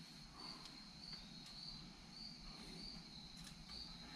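Near silence with a faint high-pitched chirp repeating at a steady pitch just under twice a second, and a few faint clicks.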